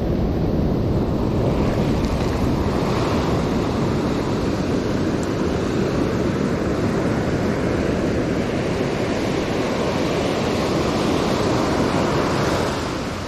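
Ocean surf breaking and washing up a sandy beach, a steady rush that swells and eases with the waves and drops off near the end.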